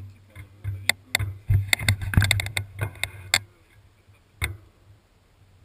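Irregular sharp knocks and rattles, a quick cluster over the first three and a half seconds and one more a second later, from an all-terrain wheelchair jolting over a rough downhill track.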